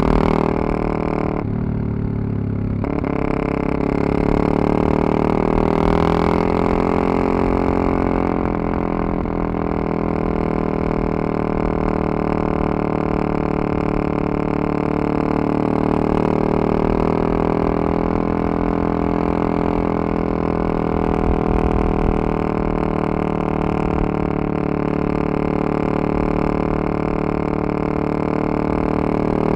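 Yamaha MT-03 660's single-cylinder engine running under way. It eases off briefly about a second and a half in, picks up again, then holds a steady pitch while cruising.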